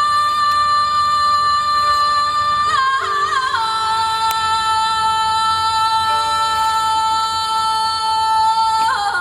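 A woman singing long, steady, high held notes in Tibetan chant-style music. About three seconds in, a quick ornamented turn steps down to a lower held note, and a new run of ornaments begins near the end.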